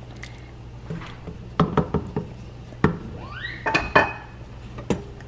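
A wooden spoon stirring a pot of soup and knocking against the metal pot, several sharp knocks and clicks spread over a few seconds.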